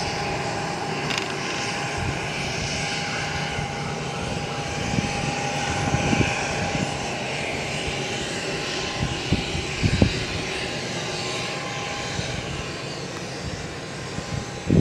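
De Havilland Canada Dash 8-200's twin Pratt & Whitney Canada PW123 turboprop engines running steadily as the aircraft taxis, a rushing drone with a steady high tone over it. A few brief low thumps come in about the middle and near the end.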